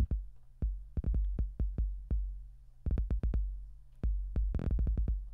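Drum-machine kick drum samples auditioned one after another in a sample browser: sharp hits, many with a deep booming low tail, some cut short by the next, with quicker light clicks in between.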